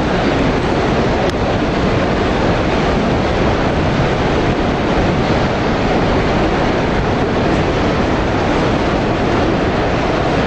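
Steady, even background noise of a crowded exhibition hall, with no single sound standing out.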